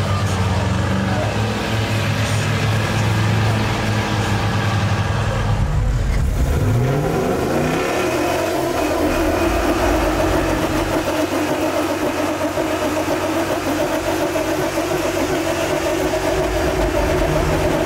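Lifted mud-truck engines. For about six seconds an engine runs steadily at low revs. Then, after a break, an engine revs up in a rising whine and holds steady at high revs while pulling against another truck in a tug-of-war.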